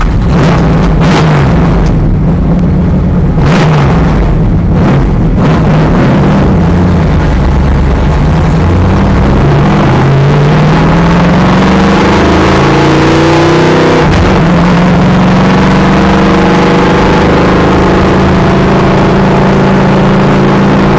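NASCAR stock car's V8 engine heard from inside the cockpit, very loud as the car accelerates. The pitch climbs, drops back sharply about two-thirds of the way in, then holds steady at speed.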